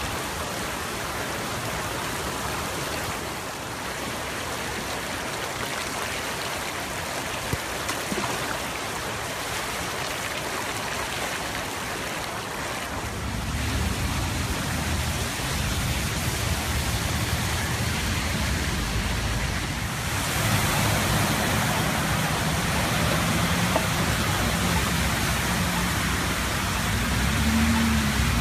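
Floodwater rushing across paved streets: a steady, even rush of water. About halfway through a low rumble joins it, and about two-thirds in the rush grows louder and brighter.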